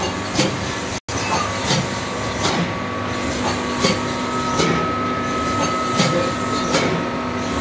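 Automatic pneumatic ice cream cup filling machine running: a steady mechanical hum and air hiss with a sharp clack about every three-quarters of a second. The sound cuts out for an instant about a second in.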